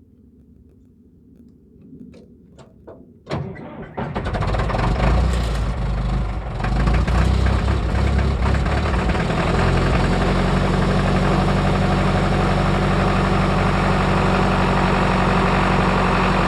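Caterpillar D4H dozer's diesel engine cold-starting below freezing: it turns over and catches almost at once about four seconds in. It runs unevenly for several seconds, then settles into a steady idle from about ten seconds in.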